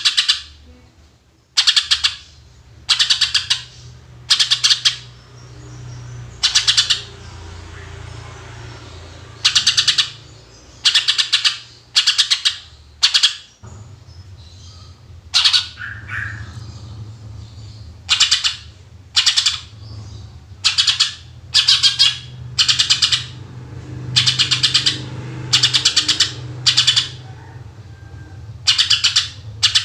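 Green leafbird (cucak ijo) singing in loud, short bursts of rapid notes, its 'shooting' song, repeated about once a second with a brief pause midway. A steady low hum runs beneath.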